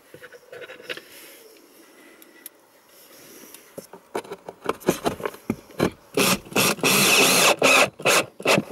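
Cordless drill-driver driving screws into a wooden shelf in several short bursts in the second half, after a few scattered clicks and knocks.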